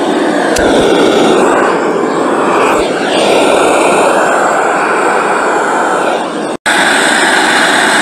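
Karaoke microphone's built-in speaker playing loud radio static, a steady rushing hiss that drops out for an instant about two-thirds of the way through.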